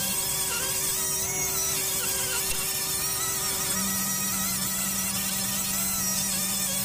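Rotary grinder with a burr bit grinding metal from a port in a Yamaha RX135 two-stroke cylinder during porting: a steady drill-like whine. Its hum steps up in pitch at the start and drops back about four seconds in, as the load or speed changes.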